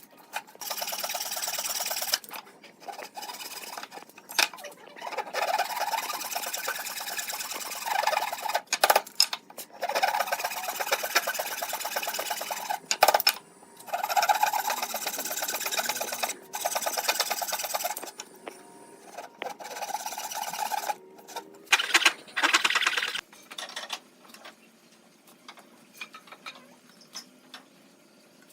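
A hand tool working wood in repeated stretches of rasping, scraping strokes with short pauses between them, then fading to a few light knocks and clicks near the end.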